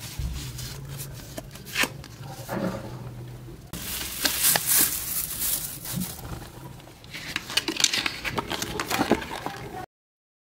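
Paper packaging being handled: rustling and crinkling of a paper envelope and a paper warranty card, with small taps and clicks. The sound stops abruptly near the end.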